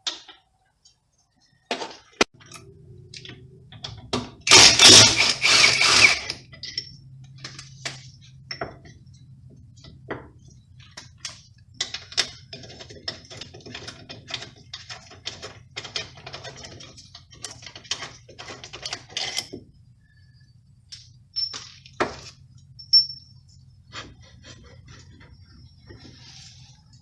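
Metal tools and parts clinking and knocking, with a loud rattling burst about five seconds in and quicker clicking later on, over a steady low hum.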